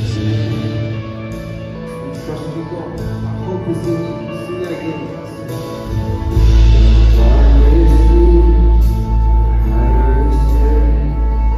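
Loud live worship music with singing. About six seconds in, a heavy deep bass comes in and the music grows louder.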